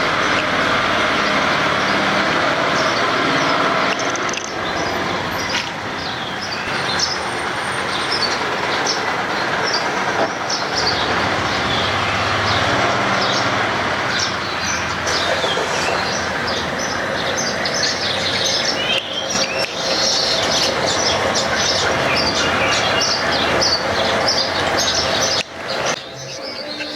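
A flock of small garden birds chirping and twittering, with many short high chirps that come thicker in the second half, over a steady noisy rumble in the background.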